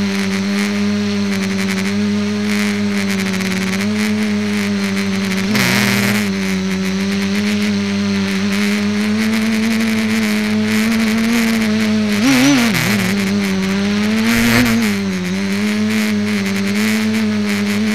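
Electric motors and propellers of a multicopter flying disc, heard from its onboard camera: a steady buzzing hum. The pitch wavers briefly twice in the second half as the throttle is corrected.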